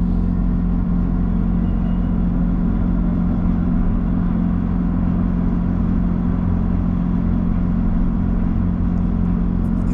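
Tram running along its track, heard from inside the car: a steady low rumble with a constant hum. A few light clicks come near the end.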